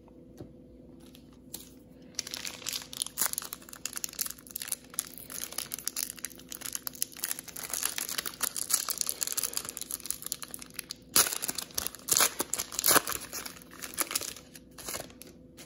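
The wrapper of a 2019 Panini Prizm football card pack crinkling as it is worked and torn open by hand. The crackling starts about two seconds in and goes on in a dense, uneven run, with a louder burst about eleven seconds in.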